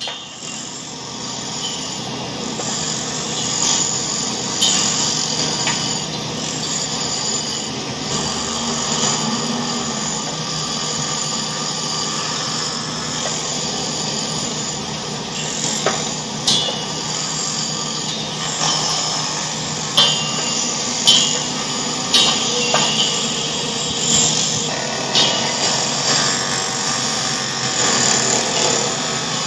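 A tohu-bohu din: a dense, continuous racket of clattering and knocking, with many sharp bangs scattered through it and more of them in the second half.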